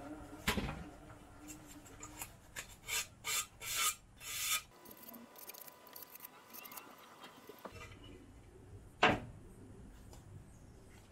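Cut edge of a 5 mm carbon fiber plate sanded by hand: a run of about five scraping strokes in the first half, after a low hum dies away. About nine seconds in comes one sharp knock, the loudest sound, as the plate is set down flat on the bandsaw's metal table.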